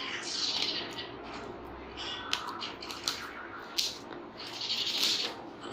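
Parcel packaging being cut open with scissors: a few sharp snips and clicks, with two stretches of scraping and rustling near the start and near the end.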